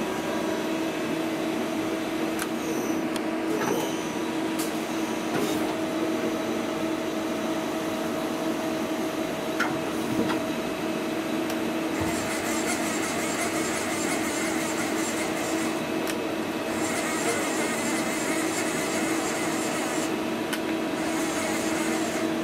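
CNC turning centre (lathe) running with its chuck spinning, a steady machine hum with two constant tones. From about halfway in, spells of high hiss come and go several times.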